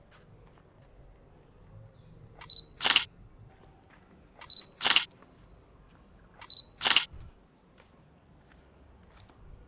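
Sony A7 III mirrorless camera's shutter firing three single shots about two seconds apart, each preceded a split second earlier by a short high beep, the focus-confirmation beep.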